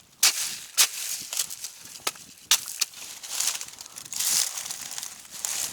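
A hiker's footsteps crunching and scuffing through dry leaves and loose ground as he scrambles over a difficult stretch of trail, in irregular steps and slides.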